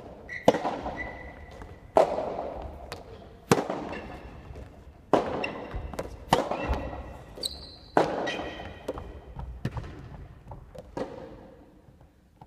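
Soft tennis rally on a wooden gym floor: the rubber ball is struck by rackets about every second and a half, with lighter ball bounces between hits, each crack echoing through the large hall. Short high squeaks of sneakers on the floor come between some of the shots.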